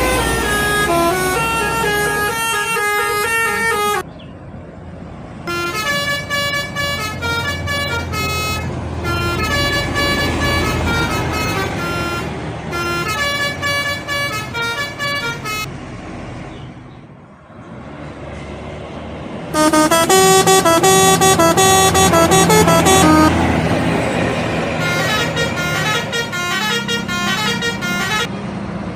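Indonesian bus 'telolet' multi-tone horns playing quick melodic runs of stepped notes, several buses in turn, with abrupt changes about 4 and 20 seconds in and a short lull around 17 seconds. A low vehicle rumble runs underneath.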